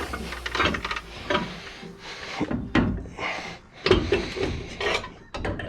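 Front strut assembly being worked out of a pickup's front suspension by hand: several sharp metal knocks and short scrapes as the parts are wrestled free.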